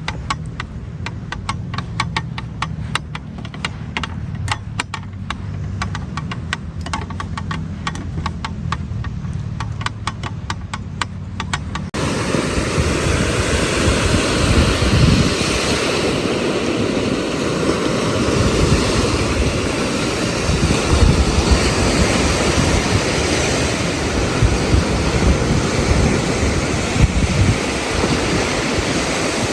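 Low, steady road rumble inside a moving car. About twelve seconds in it cuts to ocean surf with wind buffeting the microphone.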